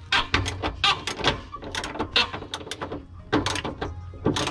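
Irregular sharp clicks and knocks of a hand tool and hands working on metal, several a second, as the bolts of a CNG cylinder's bracket in a car's trunk are being loosened, with camera handling noise.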